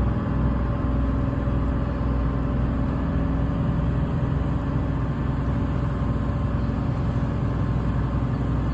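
Tour boat's engine running steadily: a low, even drone with a rushing noise over it.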